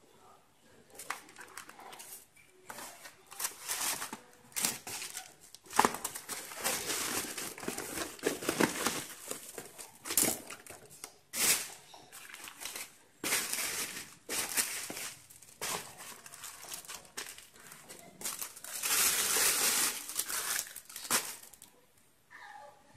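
Thin plastic grocery bags crinkling and rustling as they are handled, in irregular bursts, with a longer stretch of crinkling near the end.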